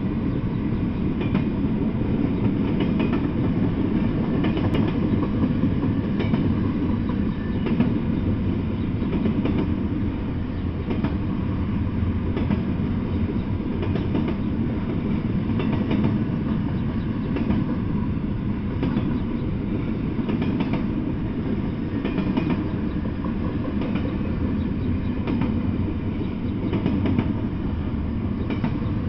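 Double-stack intermodal freight train rolling past at a steady speed. Steel wheels on the rails make a continuous low rumble, with faint clicks as the wheels pass over rail joints.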